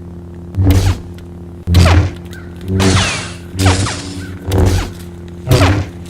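Lightsaber sound effect: a steady electric hum with six swing swooshes, about one a second, each with a falling pitch sweep.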